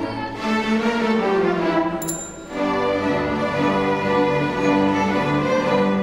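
Student string ensemble of violins and cellos playing: moving bowed lines, a short break about two seconds in, then long held chords.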